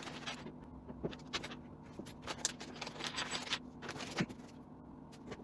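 Small metal hardware clinking and scraping in irregular, light ticks as loose parts are handled on a tabletop, over a faint steady hum.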